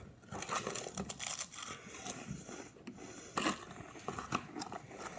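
Scattered, irregular crinkling, rustling and clicking handling noises, with a few sharper crackles.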